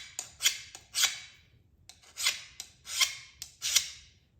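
A steel file scraped in short strokes, about six, across a hardened steel rasp, with a brief pause about halfway through. The file skates without biting, leaving not even a scratch: the sign that the rasp steel is fully hard and not yet annealed.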